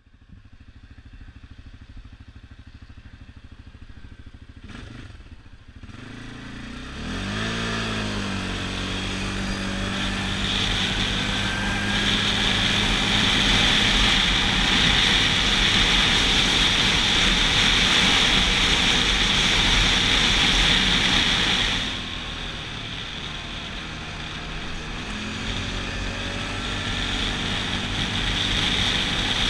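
CFMoto CForce 550 ATV's single-cylinder engine running at low revs, then revving up about seven seconds in and holding a steady speed with wind and road noise. The revs drop a little past twenty seconds and climb again near the end.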